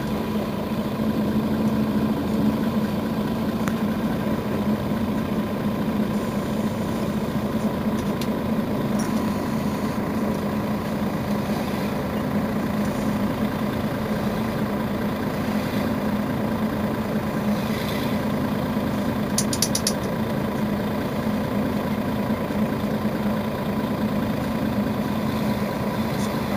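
Mercedes-Benz Citaro Facelift city bus idling steadily at a standstill, its engine a constant low hum, with a few brief faint high clicks about twenty seconds in.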